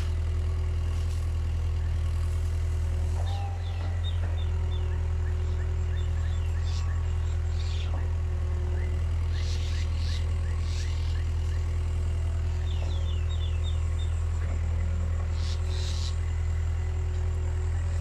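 Caterpillar 305.5E2 mini excavator's diesel engine running steadily at working speed, easing off briefly about three and a half seconds in. Runs of three or four short, high, falling chirps come now and then over the engine.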